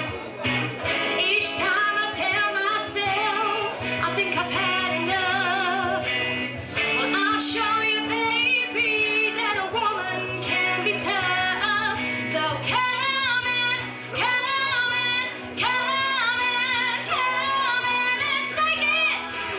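A woman singing a song with vibrato on held notes, over instrumental accompaniment.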